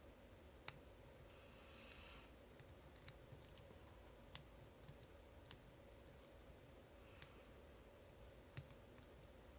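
Faint, sharp metallic clicks of a lock pick working the pins of a Master Lock Pro Series 931D laminated padlock under a tension wrench: single ticks a second or so apart at irregular intervals, with a brief scratch of the pick near two seconds in.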